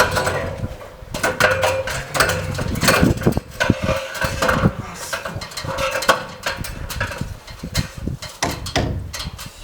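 Irregular knocking and clattering of wooden beams being handled and fitted, many sharp knocks in quick succession, with a faint steady hum.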